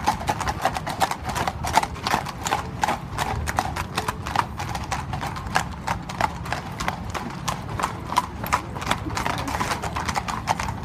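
Hooves of several horses walking on a tarmac street: a steady, uneven clatter of overlapping hoofbeats.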